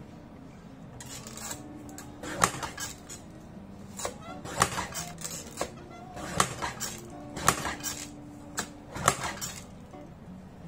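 Guillotine paper cutter being worked to cut a sheet of stickers: about six sharp metal clacks and clinks, in small clusters every second or two, as the blade arm comes down and is raised again.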